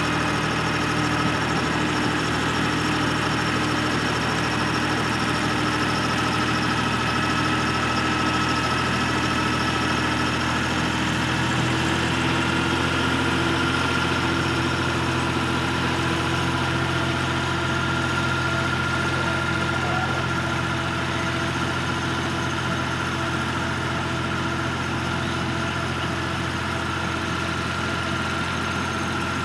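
Compact tractor engine running steadily while it drives a rear rotary cutter through weeds, with a steady high whine over the engine. The engine note shifts slightly about twelve seconds in.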